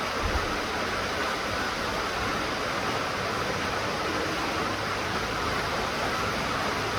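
Steady rain falling, an even hiss of rainfall, with a brief low thump just after the start.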